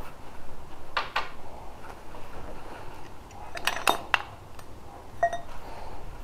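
Pieces of scrap steel clinking as they are picked up and handled: a few sharp metallic clinks about a second in and a cluster near four seconds in, the last one about five seconds in ringing briefly.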